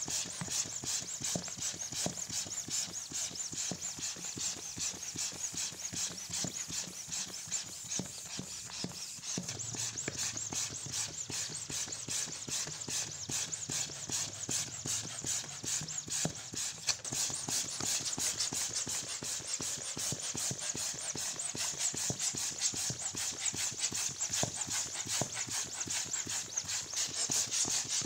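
Electric balloon inflator running and blowing up a balloon: a steady, rapidly pulsing hiss of air.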